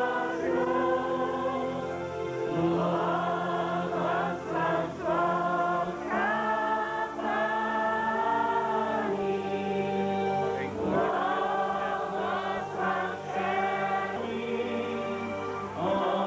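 A group of voices singing a hymn in long, held notes over steady low sustained tones beneath the voices.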